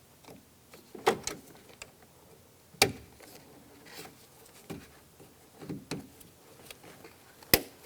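Plastic clicks and knocks from a replacement interior door handle being handled and fitted, its lock and release cables hooked in. A few sharp clicks stand out, the sharpest near the end, with softer handling noises between.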